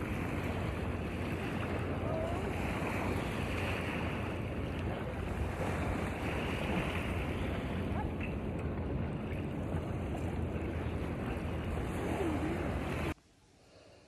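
Steady wind rushing over the microphone, with the wash of water at the shore beneath it. It cuts off abruptly about a second before the end, leaving near silence.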